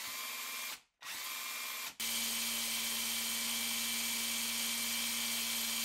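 Harbor Freight Earthquake cordless impact wrench running free with no load. It makes two short trigger bursts, then about two seconds in starts a steady run with an even motor whine, spinning too freely for the hammer mechanism to strike. The freshly rebuilt wrench is being run up so its speed can be measured.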